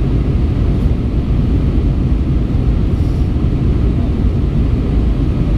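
Steady cabin noise of an Airbus A319 with CFM56 engines in flight, heard inside the cabin at a window seat: an even, low rumble of the engines and rushing air.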